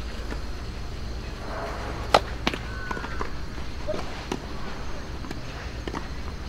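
Tennis ball knocks between points: one sharp crack about two seconds in, the loudest sound, with a smaller one just after. Then come a few softer taps as the server bounces the ball on the court before serving.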